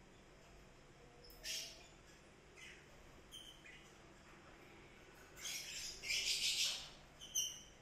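Mating cats giving a few short, high hisses and squeaks, with the longest hiss about five and a half seconds in, lasting over a second.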